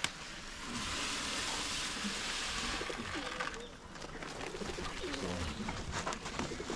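Doves cooing repeatedly, with a steady hiss lasting about two seconds near the start.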